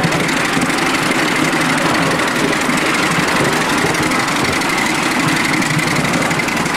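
Miniature steam locomotive running along the track with its train: a steady, noisy running sound.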